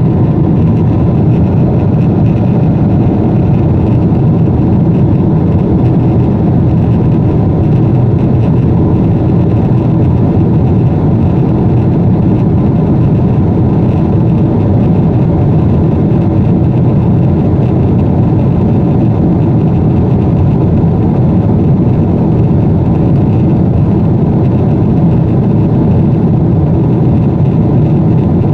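Jet airliner cabin noise in flight: the engines and the rushing air making a loud, steady, low drone that does not change.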